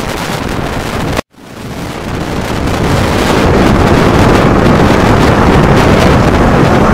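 Strong wind from a nearby tornado's inflow blowing across the microphone, a loud steady rushing noise. It cuts out for a moment about a second in, then comes back and grows louder.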